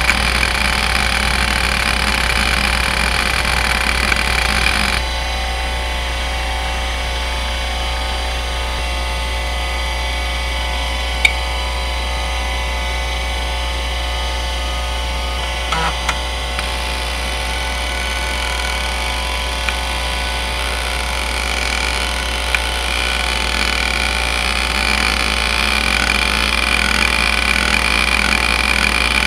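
Seagate ST3211A 210 MB hard drive (a relabelled Conner CFS210A) spinning with a steady low hum while its heads seek in busy chatter for about the first five seconds. It then runs quieter with a few isolated clicks, and busy seeking starts again about three-quarters of the way through as the drive is exercised by test software.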